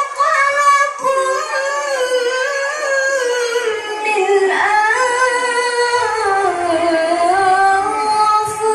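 A woman chanting Quran recitation (tilawah) in the melodic murattal/mujawwad style into a microphone, drawing out long melismatic notes that glide slowly in pitch, sinking lower toward the middle and rising again near the end.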